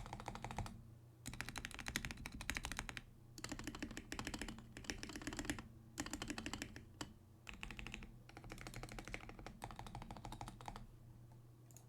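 Fast typing on a GamaKay K87 mechanical keyboard with lubed Gateron Yellow linear switches and lubed plate-mounted Durock stabilizers, dampened with cloth and masking tape under the PCB. The keystrokes come in quick runs of a second or two with short pauses between, and stop about a second before the end.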